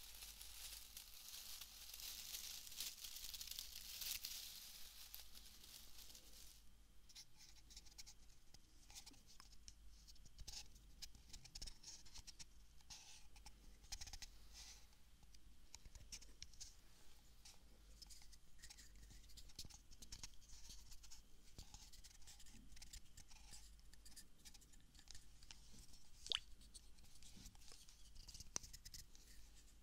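Quiet ASMR handling sounds of small bottles and plastic objects close to a binaural ear-shaped microphone. A soft rustling hiss runs for the first six seconds or so, then come many light taps, clicks and scratches at an uneven pace, one slightly sharper tick near the end.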